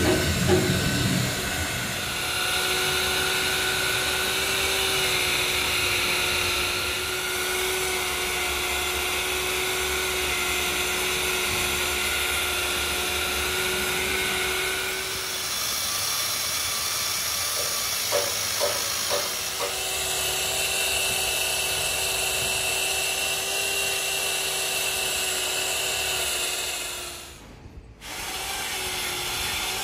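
Corded electric drill spinning an abrasive buffing wheel against the rubber of a large mining dump-truck tyre: a steady motor whine with the scrape of rubber being ground down around the damaged spot for repair. The drill stops briefly near the end and starts again.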